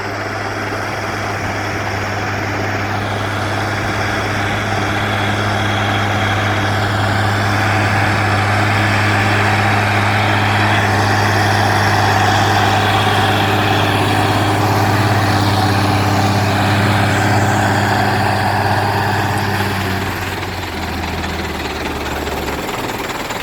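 Zetor 16245 tractor's six-cylinder diesel engine running steadily while pulling a disc harrow, with a steady rushing noise over it; the engine note drops to a lower pitch about 20 seconds in.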